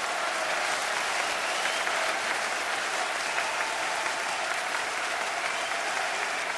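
Large concert crowd cheering and applauding steadily after a metal song ends.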